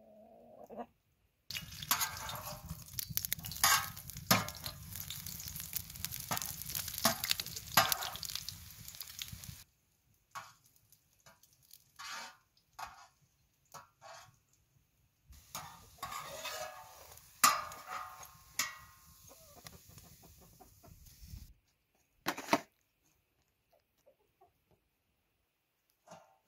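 Food frying in a pan with a steady sizzle while a utensil scrapes and knocks against the pan. It comes in two stretches that start and stop abruptly, with separate sharp knocks between them and one loud knock near the end.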